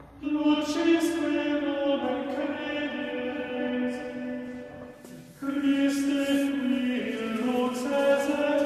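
Choral chant, with voices holding long sustained notes in two phrases and a short break about five seconds in.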